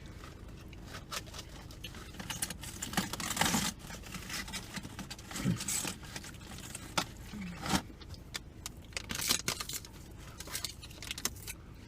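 Crinkling and rustling of food packaging, with many scattered clicks and taps, as takeout food is handled and eaten.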